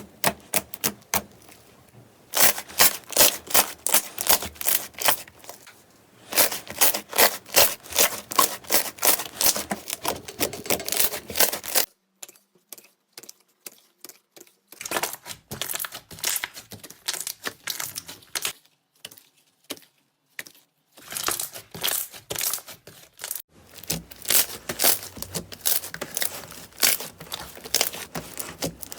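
Slime being squeezed and worked by hand, making runs of crackling, crunchy pops several times a second, with a few short pauses between runs.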